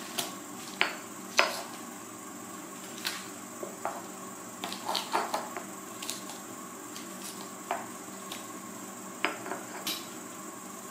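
Stone pestle knocking and grinding against garlic cloves in a stone mortar: irregular sharp knocks and clicks, with a cluster of quick taps about halfway through.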